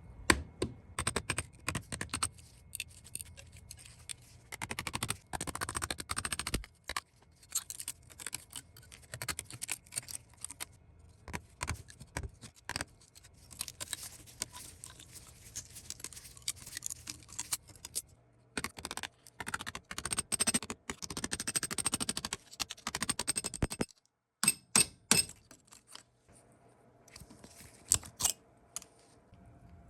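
Hand work on the small steel parts of a rusted Colt Model 1908 pistol: repeated sharp clicks and taps of metal on metal, broken by several stretches of scraping a few seconds long.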